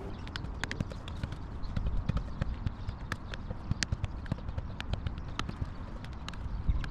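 A football being juggled off the foot while the player sits in sand: a quick, uneven run of short dull taps as the ball is kicked up again and again, over a steady low rumble.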